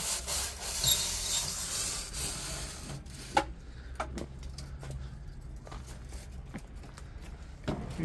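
Homemade chimney brush on a long rod scraping inside a metal stovepipe chimney: a rasping rub for about three seconds, then a few scattered sharp knocks.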